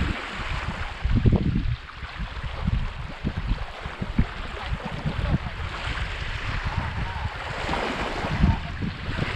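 Wind buffeting the microphone in uneven gusts, over small waves lapping on a stony lakeshore.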